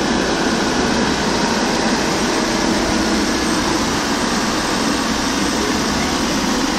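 Komatsu mini excavator's diesel engine and hydraulics running steadily, close up, while the machine is worked off the back of a dump truck.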